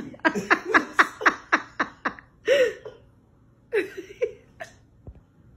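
A person laughing: a quick run of about eight short laughs in under two seconds, then a few longer, drawn-out laughs.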